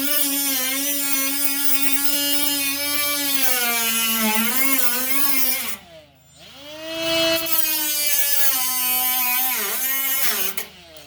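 A high-speed cut-off tool cutting through overlapped steel sheet metal, running as a steady high whine over a hiss of cutting. Its pitch sags as the wheel bites into the metal. It stops about halfway, spins back up with a rising whine, and cuts off again near the end.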